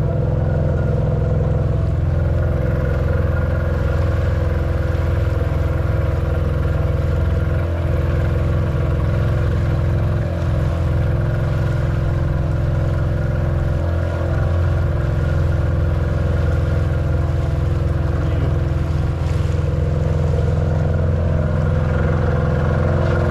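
Boat's inboard-style engine running steadily at trolling speed, a constant low drone with a steady hum on top.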